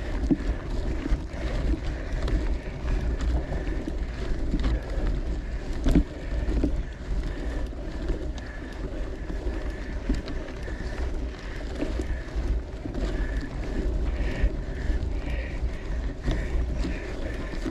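Wind buffeting the microphone of a camera riding along on a moving bicycle: a steady low rumble, with a few sharp knocks.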